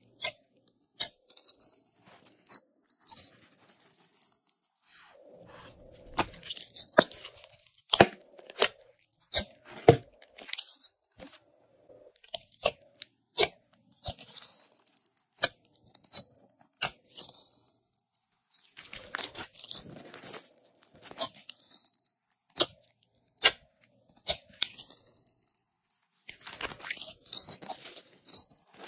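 Hands squishing, pressing and stretching glossy slime: irregular sharp clicks and pops, with recurring stretches of high, sticky crackle as the slime is pulled apart.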